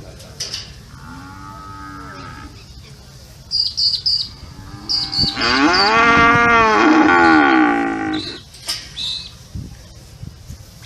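Cows mooing: a fainter moo about a second in, then one long, loud moo from about five to eight seconds in, its pitch rising and then falling. Short high chirps come in quick bursts between and after the moos.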